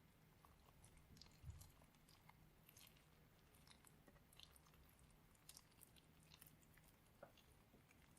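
Faint, scattered crackles and squishes of slime with Orbeez water beads being handled, with one dull thump about a second and a half in.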